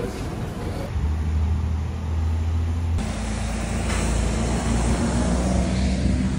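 Town street ambience: traffic noise with a steady low engine rumble. The background changes abruptly twice, about one and three seconds in.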